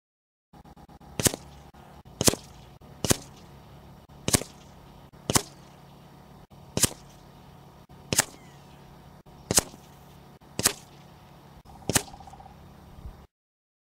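A string of ten sharp cracks, roughly one a second: .22 air rifle shots firing JSB pellets into a paper target on a wooden board.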